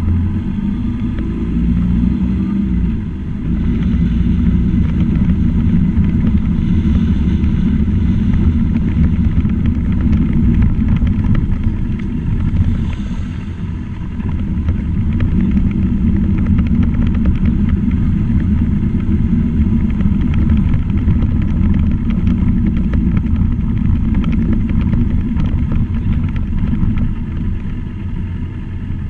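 Motor vehicle engine running while driving along, with road noise. It eases off briefly about three seconds in and again around twelve to fourteen seconds in, then picks up again.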